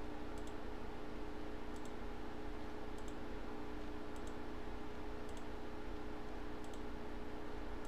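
Computer mouse clicking, about six clicks a second or so apart, over a steady low electrical hum.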